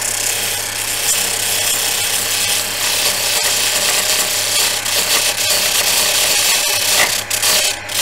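Disc sander running with a steady low hum while a small Western red cedar ring is pressed against the spinning disc, giving a loud, even sanding hiss as its edge is smoothed. The hiss breaks off briefly a couple of times near the end as the piece is eased off the disc.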